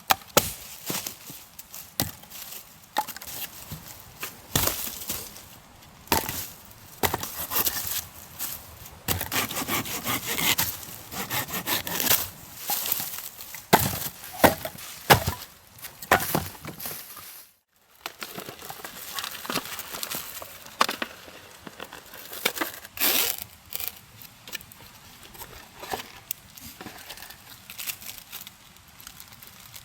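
Wood being worked by hand: an irregular run of cracks, scrapes and splintering knocks, stopping briefly a little past halfway before carrying on.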